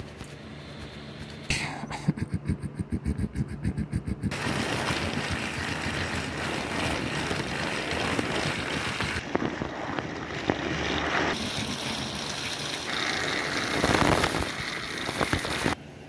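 Battery-powered toy train engine (Hiro) running along plastic toy track, its small motor and wheels making a steady mechanical running noise. A quick rhythmic clicking, about five a second, comes first; the sound cuts off suddenly near the end.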